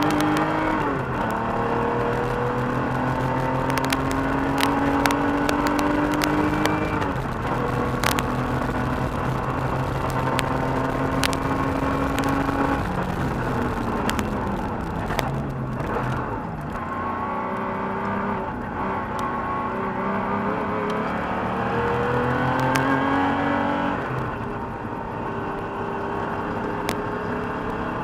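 1985 Porsche 911 Carrera's air-cooled flat-six engine heard from inside the cabin under hard driving on an autocross course. Its pitch climbs in long pulls and drops sharply several times as the driver lifts or shifts, with scattered sharp clicks over the engine.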